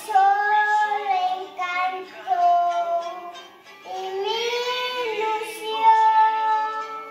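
A young child singing a song in long held notes, with a short break a little past halfway.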